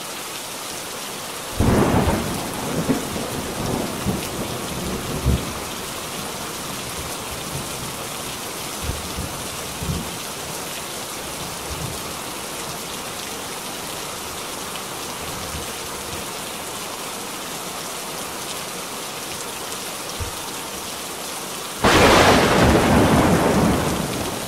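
Thunderstorm: steady heavy rain hissing throughout, with a loud thunderclap about two seconds in that rumbles on for a few seconds. A few fainter rolls of thunder follow, then a louder burst of thunder near the end.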